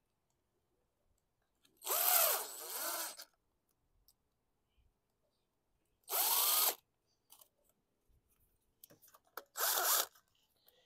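DeWalt cordless drill/driver running in three short bursts, the first the longest with its motor whine rising and then falling away, as it drives fasteners back into a lawn mower engine during reassembly.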